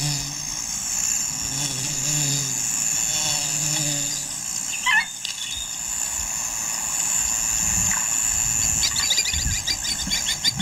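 Bush ambience: a steady high insect drone throughout, with a low hum for the first few seconds. One short swooping call comes about halfway through, and rapid repeated chirping sets in near the end.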